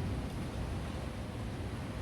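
Steady rain falling in a thunderstorm, an even hiss with a heavy low rumble underneath and no thunderclap.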